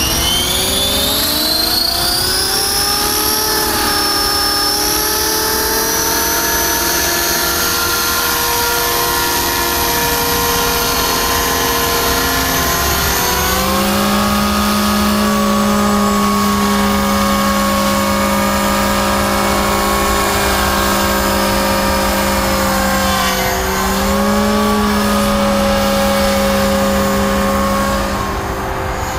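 Scale RC model helicopter with a Hughes 500 fuselage, its rotor spooling up with a whine that rises steeply in pitch over the first few seconds and then holds steady. About 13 seconds in, the tone changes as it lifts into flight and holds there, with a brief dip near the end.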